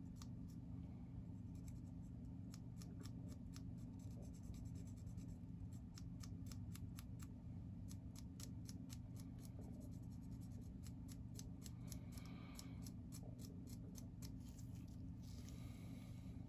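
Small, irregular scraping and clicking strokes of a hand tool on plastic as paint is cleaned off a model kit's engine mounting area, over a steady low hum.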